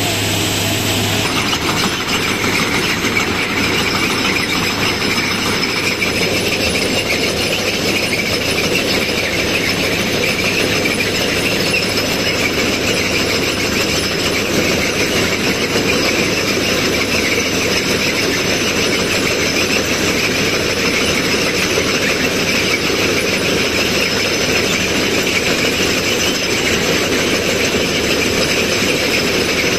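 Plasser ballast cleaning machine at work, its excavating chain digging through the ballast stones under the rails while the machine's engines run: a steady, loud mechanical din with squealing. A low hum drops out about a second in.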